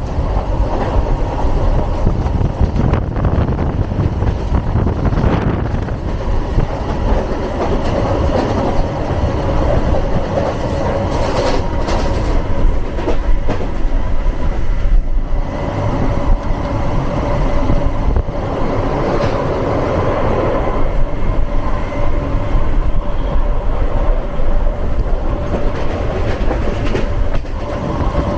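Passenger train running along the line, heard from on board: a steady rumble of wheels on rail with clickety-clack from the rail joints and a steady whining tone.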